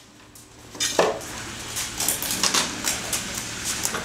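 Toro Super Recycler push mower, rigged as a go-kart with a plywood board on its deck, being wheeled across a concrete floor, its loose parts and board rattling and clattering. A sharp knock about a second in starts the clatter.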